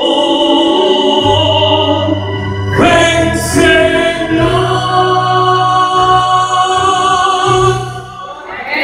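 A man sings a Spanish-language gospel song into a microphone, holding long notes over musical accompaniment with a steady bass line. The song dies down near the end.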